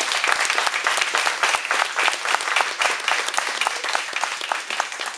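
Audience applauding: many hands clapping in a dense patter that begins to die away near the end.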